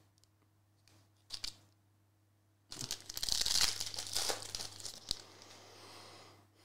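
Foil wrapper of a Panini Prizm soccer trading-card pack being torn open and crinkled. A couple of brief crinkles come about a second in, then a louder stretch of tearing and crinkling starts just before three seconds in and dies away after about five seconds.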